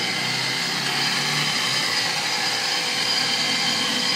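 Small electric house water pump running steadily, a constant hum with a high whine over it. It is running unprimed, switched on but not yet moving water.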